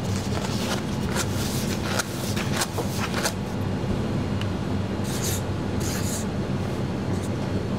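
A lid clicked and tapped into place on a moulded-fibre takeaway bowl, then a marker pen making two short rubbing strokes across the lid, over a steady low hum.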